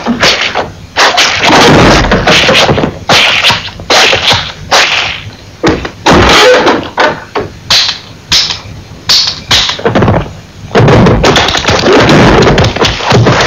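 Loud, harsh sound effects: an irregular run of whacks and short noisy bursts, some under half a second and some near a second, then a longer unbroken stretch of harsh noise near the end.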